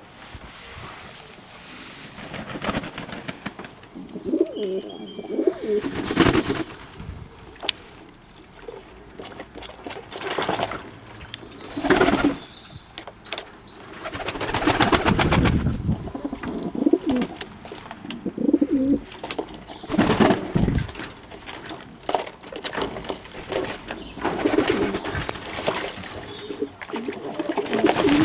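Fantail pigeons cooing again and again, low rolling coos coming every second or two, with short scuffling noises between them.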